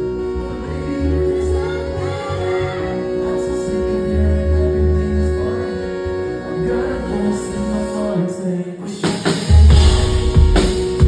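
Pop song with a sung melody over sustained keyboard-like tones and a pulsing bass. About nine seconds in, the music gets louder, with heavy bass and drum hits.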